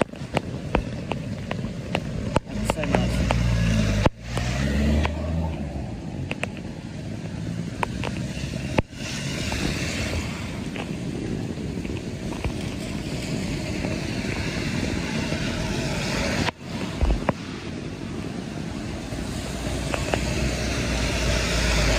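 A motor vehicle's engine and road noise, running continuously; the engine note rises and falls about three to five seconds in.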